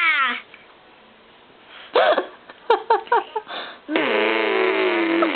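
A person's voice making silly vocal noises: a falling squeal, then a string of short hiccup-like yelps, then a long sustained pitched drone that starts about four seconds in.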